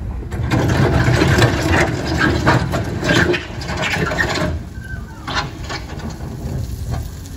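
JCB backhoe loader's diesel engine running as its lowered front bucket pushes and scrapes loose gravel and stones, with crunching and clattering. The scraping eases off about four and a half seconds in, leaving the engine rumbling.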